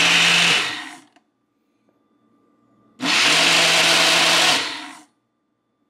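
Ninja personal blender motor blending a protein shake with ice in pulses: it runs until about a second in, stops for about two seconds, then runs again for about two seconds and stops.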